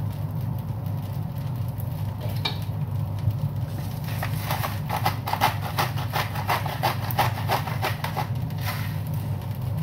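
Pepper grinder being twisted, a quick run of gritty clicks lasting about five seconds from about four seconds in, over a steady low hum.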